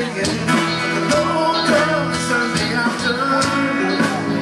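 Live band music: a man singing into a microphone over guitars and drums, with a steady beat.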